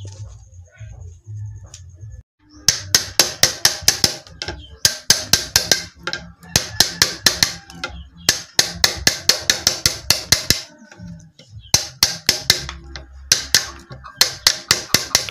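A steel wood chisel is struck in quick runs of sharp taps, about six a second, with short pauses between runs, as it cuts a row of notches into the edge of a wooden slab. The tapping starts a couple of seconds in.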